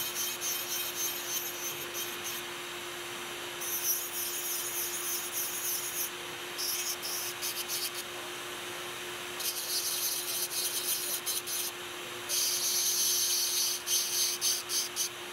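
Dental lab handpiece with a bur grinding a metal crown coping: a high scratchy hiss in five spells of one to three seconds each as the bur is put to the metal and lifted off. A steady hum runs underneath.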